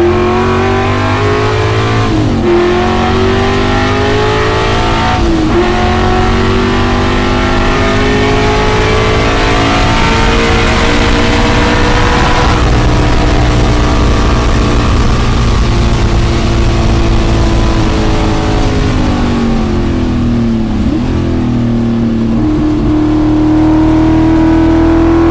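Classic Ford Mustang's engine under hard throttle, heard inside the cabin. The note drops suddenly and climbs again about two and about five seconds in, as the gears are changed up. About three quarters of the way through it falls away, then climbs again near the end. Toward the end the engine's tone changes, which the driver puts down to a rocker arm coming off.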